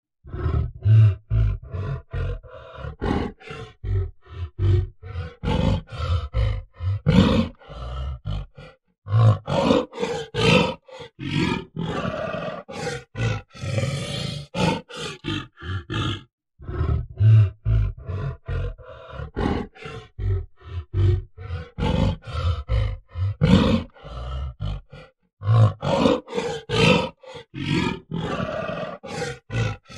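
Gorilla grunting: a fast run of short, deep, guttural grunts, several a second, with longer drawn-out calls around ten to fifteen seconds in and again near the end. Brief pauses fall near nine and sixteen seconds, and the same sequence of grunts repeats after about sixteen seconds.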